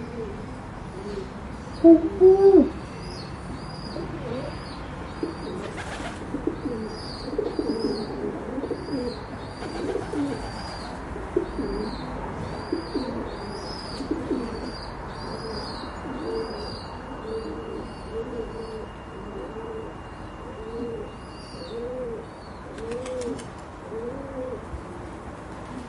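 Pigeons cooing: a long string of low, rounded coos, loudest about two seconds in. Small birds chirp steadily in the background with high thin notes.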